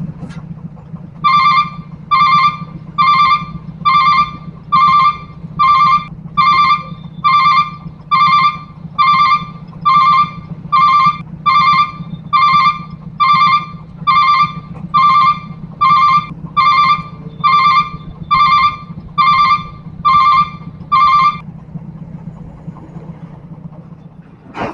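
Railway level-crossing warning bell ringing: one electronic ding on a single pitch, repeated about once a second some two dozen times. It stops a few seconds before the end, over a steady low drone.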